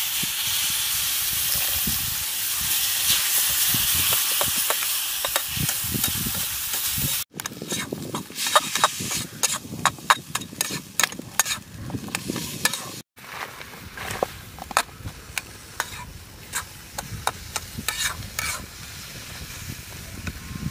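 Milk sizzling steadily as it is poured into a hot iron kadai of coconut and sugar. After about seven seconds the hiss stops, and a slotted metal spatula scrapes and clicks against the pan as the mixture is stirred.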